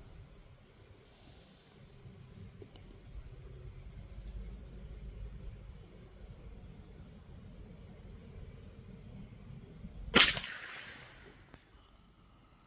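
A single .22 LR rifle shot about ten seconds in, its report trailing off over about a second. Insects keep up a steady, high, thin chirring throughout.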